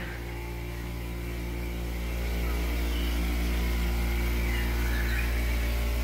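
Steady low electrical hum with faint room noise, growing a little louder over the first few seconds.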